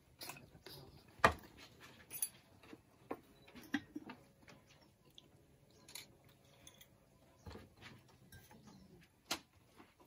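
Scattered light clicks and knocks of ceramic and glass pour-over coffee gear being handled and set down on a wooden table, with a sharper knock about a second in and another near the end.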